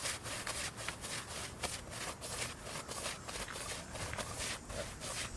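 Paint brush scrubbing liquid roof coating onto asphalt shingles and old tar: bristles rubbing across the rough surface in quick repeated strokes, about three a second.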